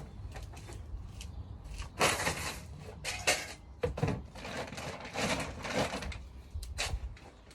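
Irregular wooden knocks and clattering, as cut log pieces are handled and set down. There are about five louder knocks over several seconds, with no saw motor running.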